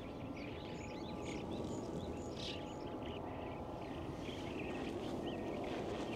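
Small birds chirping repeatedly over a steady low outdoor rumble.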